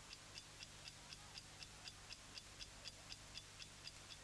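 A clock ticking quietly and evenly, about four ticks a second, over a faint low hum.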